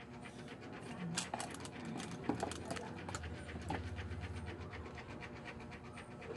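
Fast, steady panting, with a few light clicks as wires are handled.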